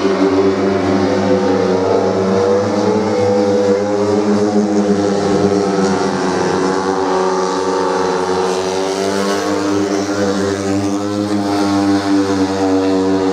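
Three 250 cc speedway motorcycles racing together at high revs, their engines blending into one steady, loud sound whose pitch rises and falls a little as they go round the track.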